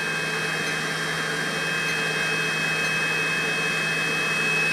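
Steady whirring noise with a low hum and a few constant high-pitched whines from a power pack's built-in inverter running under a load of about 294 watts.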